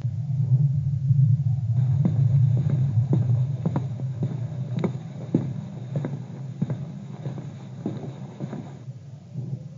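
Dark ambient passage from a black metal demo: a low droning rumble with irregular knocks, about two to three a second, from about two seconds in until near the end.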